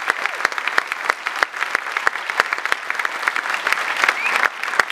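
Audience applauding after a song: a dense, continuous clatter of many hands clapping.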